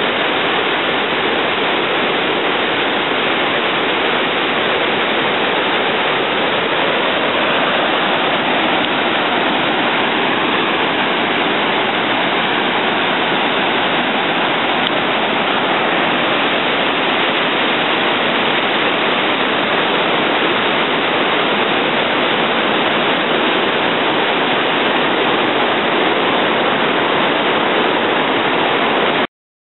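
Mystic Falls on the Little Firehole River: a steady, unbroken rush of falling, churning water, cutting off abruptly near the end.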